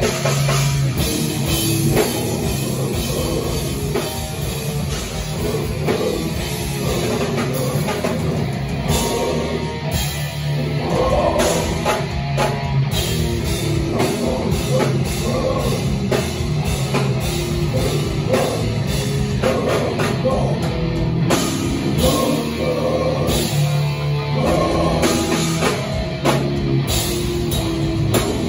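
Live rock band playing loud: electric guitar over a pounding drum kit, with vocals at times.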